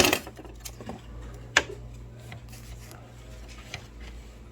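A few sharp clicks and taps of small hand tools working against the plastic printhead latch of a Memjet printer, the loudest about a second and a half in, over a steady low hum.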